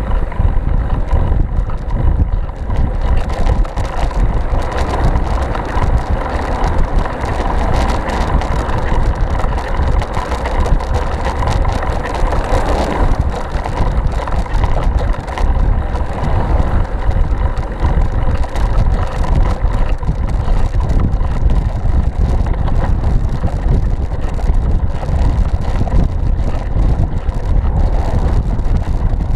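Wind buffeting a bicycle-mounted camera's microphone while riding, a heavy steady rumble, with the hiss of car tyres on the wet road as vehicles go past, swelling around the middle.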